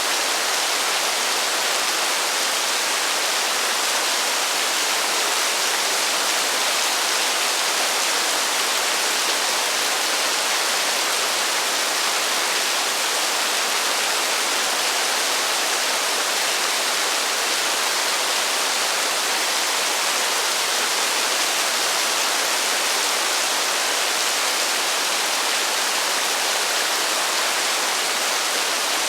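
Heavy rain in a steady, even hiss at a constant level, with no thunder.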